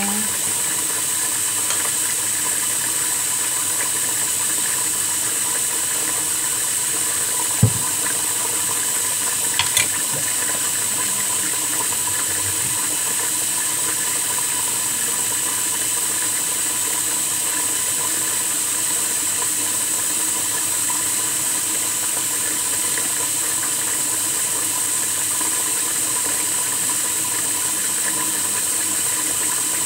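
Steady hiss with a faint hum underneath, broken by a single sharp knock about seven and a half seconds in and a couple of light clicks about two seconds later.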